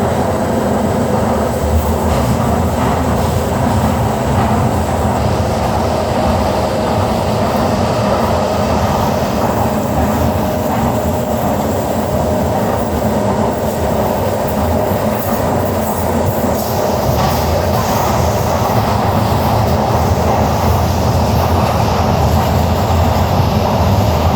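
Docklands Light Railway train running between stations, a steady rumble of wheels on the rails with a faint constant tone through it.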